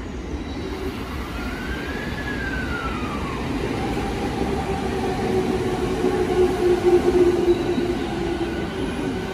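JR East 209 series electric train pulling away from the platform, its traction motors and inverter whining: a tone that rises then falls in pitch early on, then a steady hum that grows louder as the train gathers speed and comes closer.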